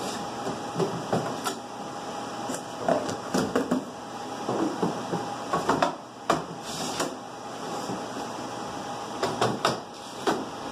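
Irregular clicks, knocks and clatter from hands working an APC Symmetra PX UPS battery module: the batteries being handled inside the module's sheet-metal casing, over a steady background hum.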